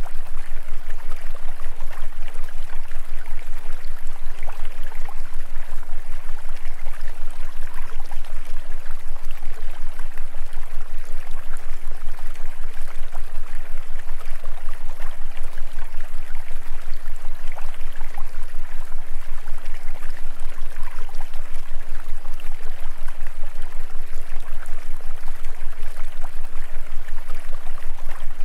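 Steady hiss like a running stream, with a constant low hum beneath it and a fast, even pulse in its loudness.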